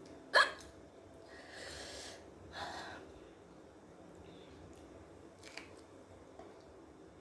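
A single sharp hiccup about half a second in, the loudest sound, brought on by eating very hot green chillies. It is followed by two heavy breaths and a faint click later.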